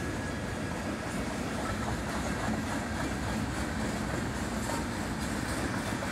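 Empty centerbeam flatcars of a freight train rolling past, their steel wheels making a steady rolling noise on the rails with faint clicks in the second half.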